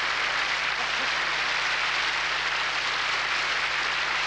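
Audience applauding steadily, a dense even clapping with no let-up.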